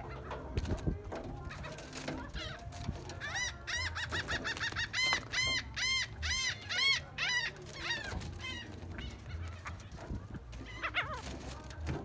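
A gull calling: a run of short, arched calls starting about three seconds in, the loudest coming about two a second, then a single call near the end.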